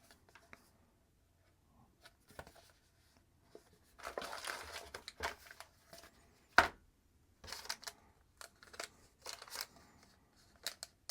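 Small plastic accessory bags crinkling and rustling as they are handled and opened, with scattered light ticks and one sharp click partway through.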